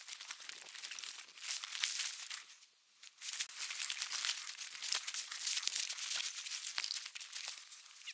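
Dense, irregular crackling rustle of dry brush and leaves being pushed through. It breaks off briefly about three seconds in, then carries on.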